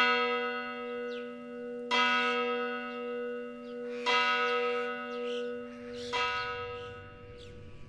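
A single church bell tolling: four strokes about two seconds apart, each ringing on and fading before the next, the last dying away near the end.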